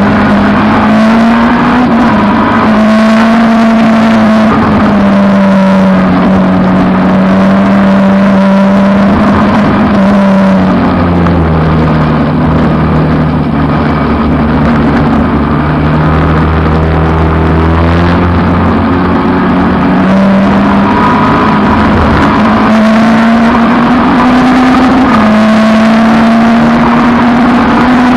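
Peugeot 306 race car's engine running hard under racing. The engine note holds fairly steady, drops lower about ten seconds in and stays down for several seconds, then climbs back up.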